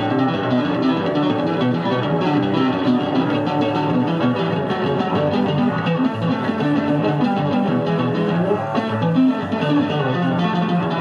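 Electric bass guitar played solo, amplified at a live concert: quick runs of notes that change pitch rapidly.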